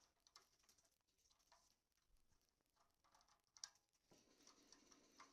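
Faint, scattered clicks and light scrapes of a screwdriver turning a small machine screw out of a cable box housing.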